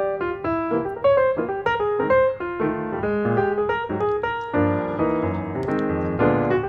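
Background piano music, a run of quick notes over lower chords.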